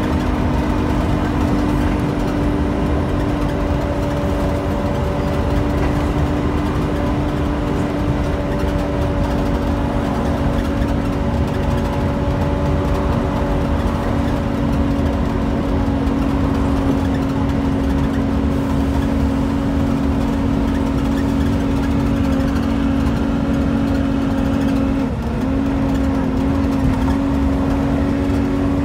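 Volvo B7TL double-decker bus's 7.3-litre six-cylinder diesel engine and drivetrain heard from the upper deck, running at a steady speed under way. It carries a steady whine over a low rumble, wavering briefly near the end.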